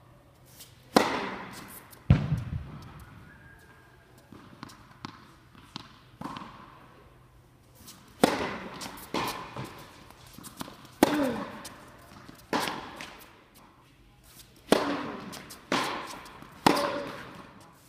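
Tennis ball being struck by rackets and bouncing on an indoor hard court, each sharp pop followed by echo in the hall. A heavier, duller thud comes about two seconds in, and from about eight seconds in a serve and rally give roughly one hit or bounce a second.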